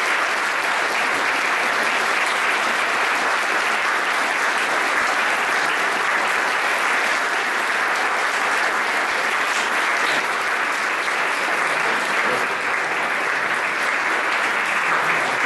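Audience applauding at the close of a talk, a dense and even clapping that keeps going without letting up.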